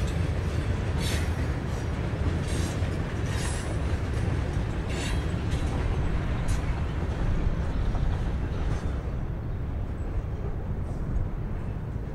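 Freight train of covered coil cars rolling past on a far track: a steady low rumble, with short high wheel clicks or squeaks every second or so that thin out near the end.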